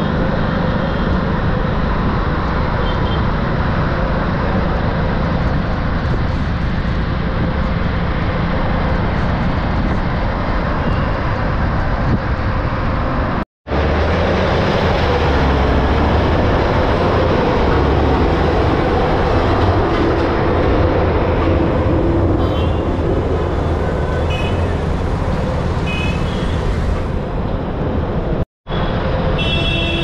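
Steady traffic and road noise while moving along a busy city road: a continuous low rumble of engine and wind with a constant hiss. It drops out for an instant twice, about halfway through and near the end.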